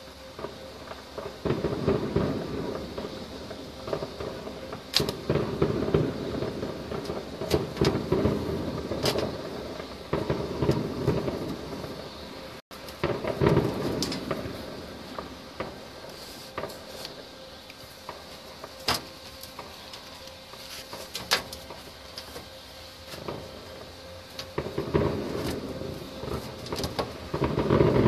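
Distant fireworks: aerial shells bursting as rumbling booms that come in waves, with sharp cracks scattered among them. The booms thin out in the second half, then build again near the end.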